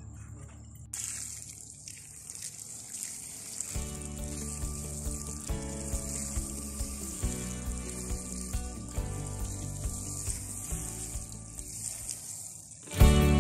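Water pouring steadily onto soil as newly planted seedlings are watered, starting about a second in. Background music joins about four seconds in and turns much louder near the end.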